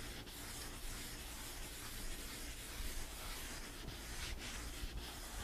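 Faint, steady rubbing of a hand sanding pad across the dry finish coat on a plywood panel, the coating powdering as it is scuff-sanded.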